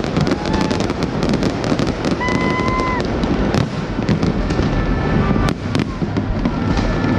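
Fireworks display: rapid, dense bangs and crackling shells bursting one after another without a break. About two seconds in, a steady high whistle holds for under a second.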